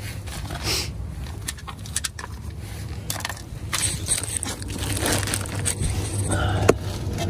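Black plastic sheeting crinkling and rustling with irregular scrapes and clicks as someone shifts around on it beneath a car.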